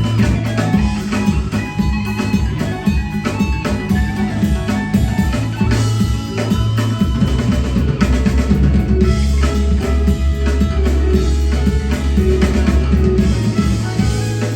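Live rock band playing an instrumental passage: drum kit, electric guitars and a heavy, sustained bass.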